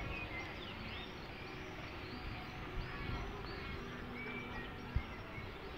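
Many small birds chirping and singing in the trees, quick high notes throughout, over a steady low rumble. A brief low thump about five seconds in.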